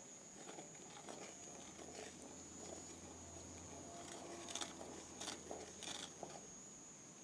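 A wooden spoon stirs and scrapes caramelizing sugar around a dark pot, with faint sizzling and three sharper scrapes about two-thirds of the way through.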